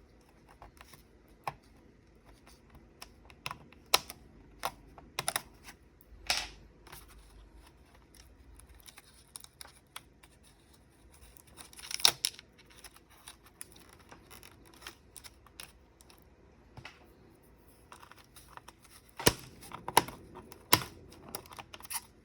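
Sporadic sharp clicks and taps of an old Compaq V3000 laptop's plastic case, cables and connectors being handled and pulled apart during disassembly. A louder cluster of clicks comes about twelve seconds in, and a few strong clicks come near the end.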